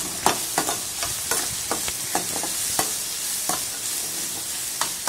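Slotted metal spatula scraping and knocking against a metal kadai, irregularly a few times a second, while turkey berries, brinjal and shallots sizzle steadily in hot oil as they sauté.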